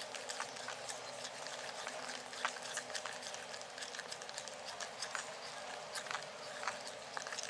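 Small irregular clicks and taps of kitchen utensils against a bowl while cake batter ingredients are handled and mixed by hand.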